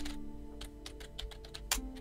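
Computer keyboard typing: a quick run of key clicks, with one louder click near the end, over soft background music with steady held notes.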